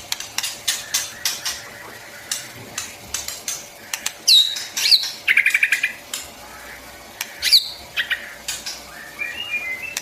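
White-rumped shama singing: a run of sharp clicking notes broken by a few quick down-slurred whistles, a fast trill about five seconds in, and short whistled notes near the end.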